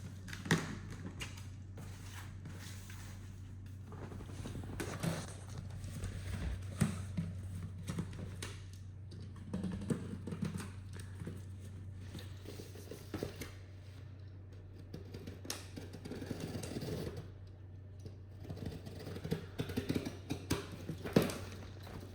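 Cardboard shipping box being cut open and handled: scattered taps, thunks and scrapes over a steady low electrical hum.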